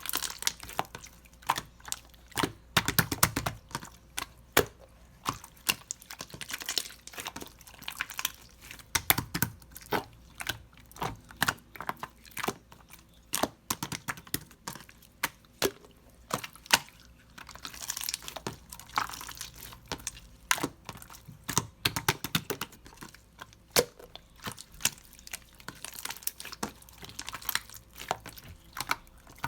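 Hands kneading, pressing and poking clear slime, making a run of irregular sticky clicks and crackling pops.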